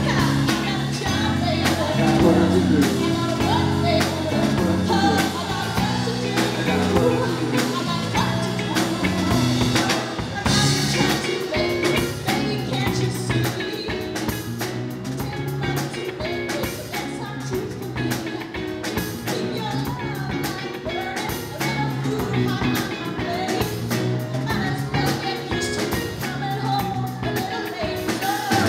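Live band playing a soul-funk cover: a woman's lead vocal over drum kit, electric bass, electric guitar and a Hammond XK-2 organ.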